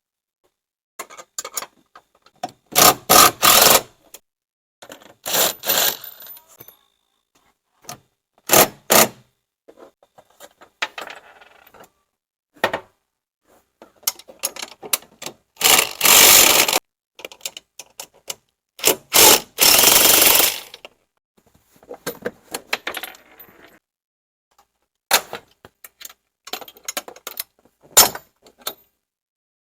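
A cordless impact driver run in short bursts, each a second or so, loosening the bolts on the golf cart top's rear struts, with small metallic clicks and clinks of sockets and bolts between them. The two longest and loudest runs come past the middle.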